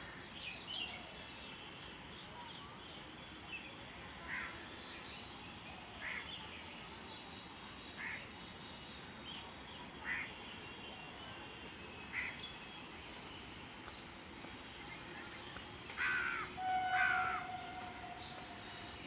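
A crow cawing at regular intervals, about once every two seconds, with two louder caws near the end, over faint chirping of smaller birds.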